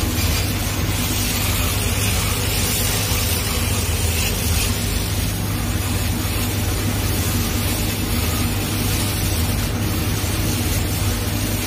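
Two-head laser cutting machine at work on a mirror acrylic sheet: a steady hiss with a low, even hum, no breaks or knocks.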